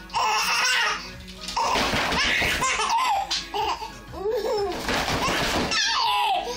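Nine-month-old baby laughing in three bursts of belly laughs, set off by a plastic floor mat being shaken, with the mat's crackling noise mixed in.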